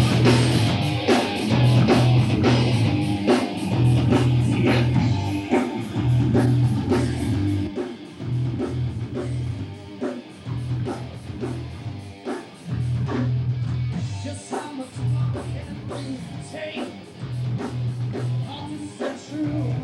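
Heavy metal band playing: crunchy electric guitar over heavy bass and a steady drum beat, the bass in repeating chugging blocks.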